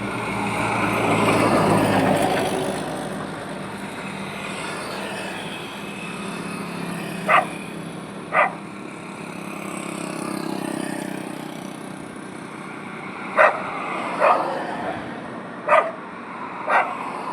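Road traffic with vehicles passing, the loudest about a second and a half in and another around ten seconds. A dog barks six times in short, sharp pairs from about seven seconds on.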